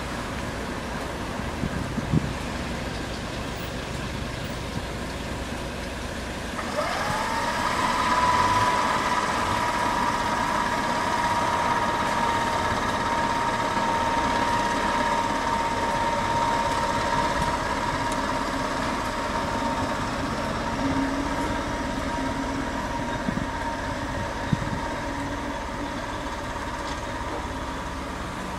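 Class 73 electro-diesel locomotive running on its diesel engine: idling at first, then about seven seconds in it opens up with a whine that rises quickly and settles into a steady high note as the locomotive pushes the train away.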